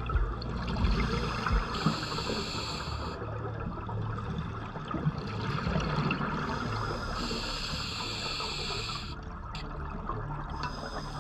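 Underwater bubbling of a scuba diver's exhaled breath, two exhalations about five seconds apart, over a steady low hum.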